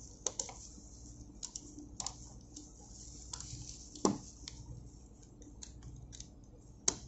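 Circlip pliers clicking and scraping against the steel lock ring of a fuel oil high-pressure pipe nipple as the ring is worked open: a handful of separate sharp metal clicks, the loudest about four seconds in, over a low steady hum.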